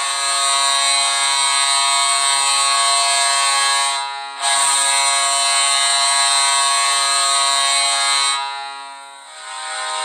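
Tampa Bay Lightning arena goal horn blowing: a long, loud, steady multi-tone blast, cut briefly about four seconds in, then sounding again until it fades out near the end. Just before the end a different goal horn starts.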